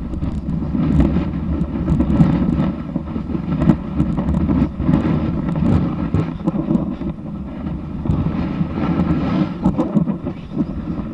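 Snowboard base sliding over snow, a continuous rough rumble with scattered small scrapes and clicks, picked up through a camera mounted on the board's nose. Wind buffets the microphone.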